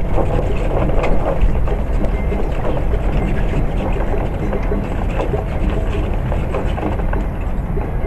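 Steady wind rumbling and buffeting on the microphone, with an outdoor hubbub of passers-by's voices underneath.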